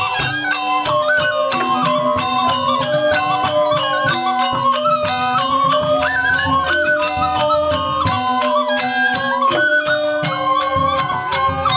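Balinese gamelan music: metal-keyed instruments play fast, stepped melodies over a steady run of cymbal-like strikes.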